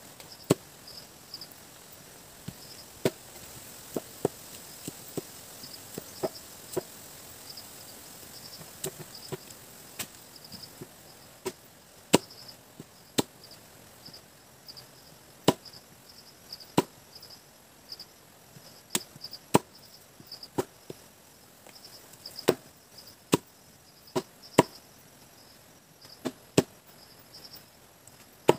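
A blade chopping into lakatan banana plant material, with irregular sharp strikes about one every second or so, some coming in quick pairs. Insects chirp steadily in the background.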